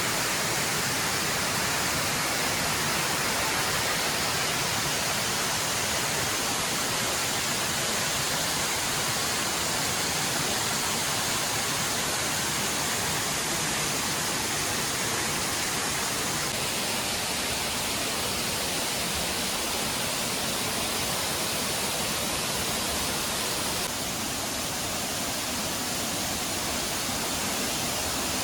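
Seasonal monsoon waterfall pouring over rocks: a steady, even rush of falling water, dropping slightly in level about 24 seconds in.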